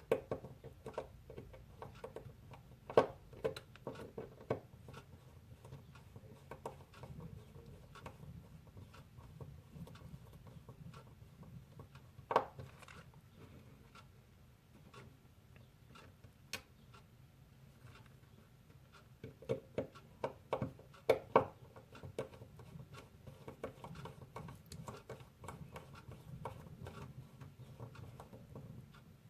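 Faint, irregular small clicks and ticks of a precision Torx screwdriver turning the tiny back-cover screws of a Fitbit Blaze smartwatch, with a few louder taps scattered through, over a low steady hum.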